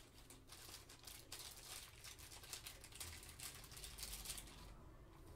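Faint rustling and crinkling as trading cards and their plastic wrapper are handled by gloved hands and set down on stacks of cards: a quick run of small clicks and rustles that eases off near the end.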